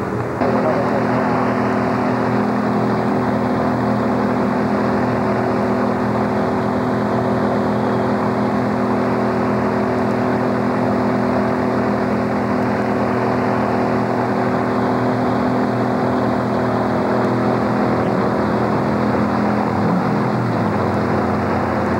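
Stock car V8 engines running at speed in a steady, loud drone. Near the end one engine note falls in pitch.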